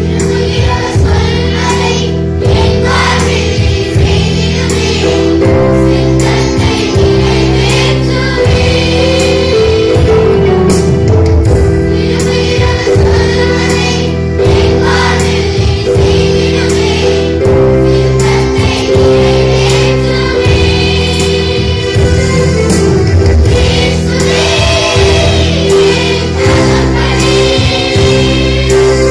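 Children's church choir, joined by older girls and adults, singing a Tamil Christian song over instrumental accompaniment with a steady bass line.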